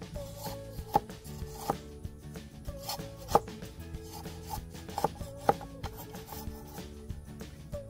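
Machete blade chopping at bamboo: sharp single strikes at irregular intervals, the loudest about three and a half seconds in, over background music.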